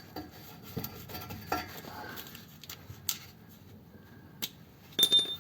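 Hand tools clinking and scraping on metal while the bolts of a car's gearbox rear mount are worked loose from underneath. Scattered small clicks, then a louder metallic clatter with a brief high ring near the end.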